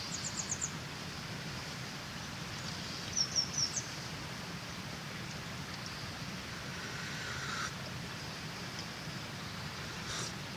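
Small birds chirping in short quick runs of high notes, near the start and again about three seconds in, over a steady rush of river water.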